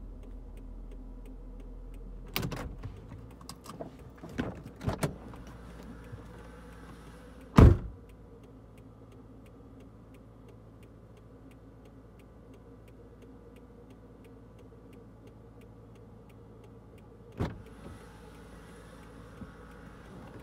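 Sounds from inside a car: a low hum stops about three seconds in, a few clicks and knocks follow, and a car door shuts with a loud thump near eight seconds. Another door thump comes near the end, over a faint regular ticking.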